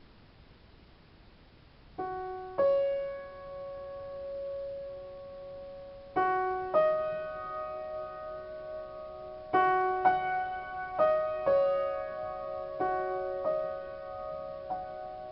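Upright piano played slowly in a free improvisation. After about two seconds of quiet, single notes and soft chords are struck a second or two apart and left to ring out.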